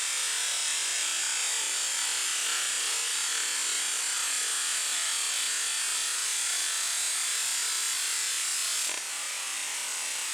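High-pressure washer jet spraying in a steady hiss, dropping slightly in level about nine seconds in.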